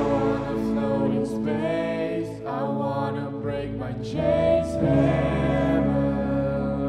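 Indie pop-rock band playing live: singing over held guitar and keyboard chords, with the drums dropped out and only a few light high taps. The sound eases off slightly near the end.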